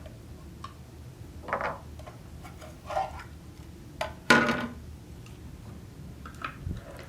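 Scattered light clicks and knocks of a screwdriver, small screws and the plastic housing of an electric pencil sharpener being handled as the screws are taken out and the top cover removed. The loudest is a sharp clack with a short ring about four seconds in.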